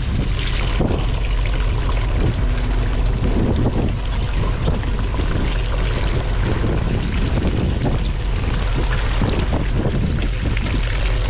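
A fishing boat's engine running steadily with wind on the microphone, under scattered small knocks and wet handling sounds of a knife and gloved hands working a tuna on a wooden cutting board.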